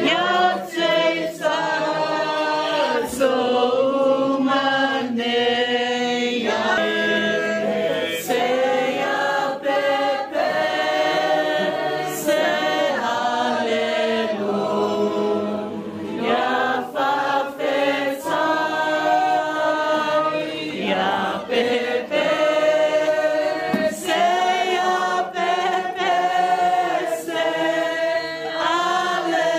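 A group of voices singing together in a choir-like song, held notes moving from phrase to phrase without a break.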